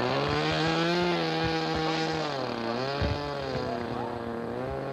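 Rossi .60 two-stroke glow engine of a model F-18 pusher jet running on the ground, its pitch rising, dropping about two and a half seconds in, then climbing again as the throttle is worked. A few sharp knocks, the loudest about three seconds in.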